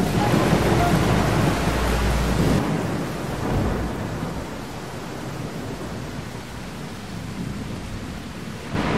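Recorded thunderstorm: a heavy low rumble of thunder that drops off after about two and a half seconds into a quieter steady hiss of rain, before the music cuts back in at the very end.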